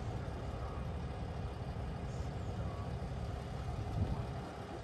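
Diesel engine of a Scania crane truck running steadily, a low rumble, powering the hydraulics of its Fassi knuckle-boom crane.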